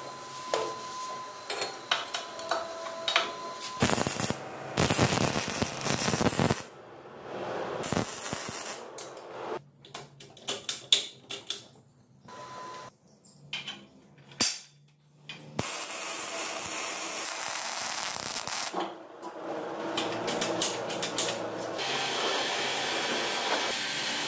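Workshop handling sounds: metal clicks and clinks as a roller chain is worked onto a motorcycle engine's drive sprocket, broken by several stretches of steady hiss-like noise.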